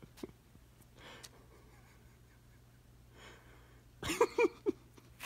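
A man's excited gasp and three or four short, breathy laughing bursts about four seconds in.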